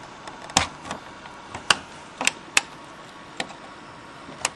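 Sharp, irregular plastic clicks and taps of a laptop being handled while its touchpad connector is unplugged, about seven in all.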